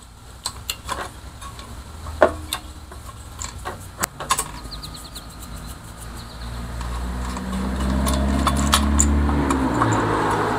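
Scattered light clicks and taps of small metal parts being handled, then a motor vehicle's engine hum swells steadily louder over several seconds and becomes the loudest sound.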